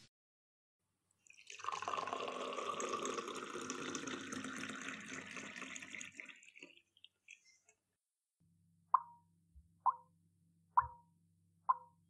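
Water pouring into a vessel for about five seconds, fading out. Then, after a pause, single water drops fall into water about once a second, four short plops over a faint low hum.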